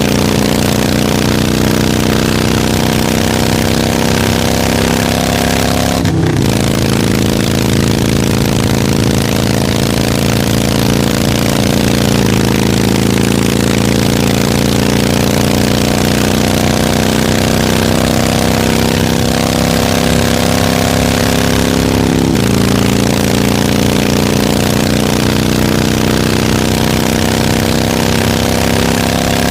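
Harley-Davidson motorcycle's V-twin engine running steadily while ridden. Its pitch drifts slowly down and up, with a short break where the pitch jumps about six seconds in and again about twenty-two seconds in.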